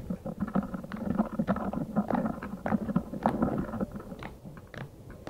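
Slime being squeezed and stretched by hand, giving a dense run of small irregular squelches and crackles; the sound is soft.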